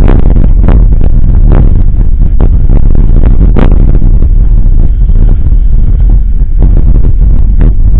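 Mountain bike rolling over a rough, muddy dirt road, heard through a camera mounted by the front wheel: a loud, steady low rumble of wind and tyre buffeting on the microphone, with frequent short knocks and rattles from the bumps.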